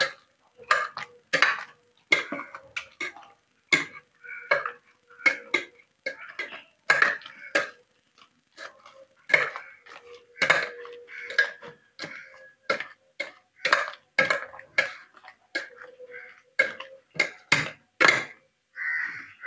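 Boiled plantains being mashed in a stainless steel pot with a steel tumbler: repeated metallic knocks of steel on steel, about one or two a second, each ringing briefly.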